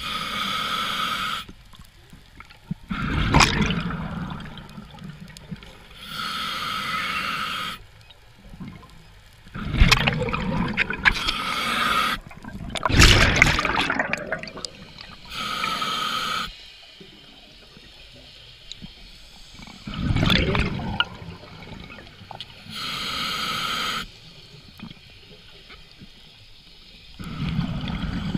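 Scuba diver breathing through a regulator underwater: a short hiss on each inhale, then a rumbling burst of exhaled bubbles, about five breaths in all.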